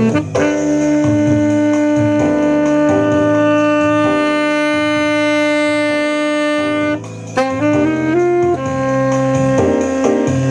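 Saxophone holding one long note for about six and a half seconds, then a quick run of rising notes and shorter phrases, over a lower accompaniment.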